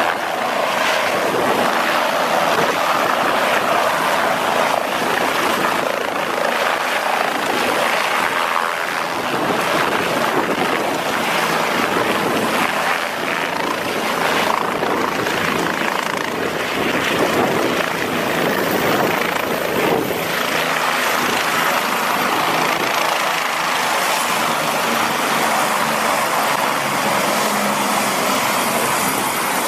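Bell 407 helicopter's single turboshaft engine and main rotor running steadily as it hovers low and settles onto its skids, the rotor still turning once it is down.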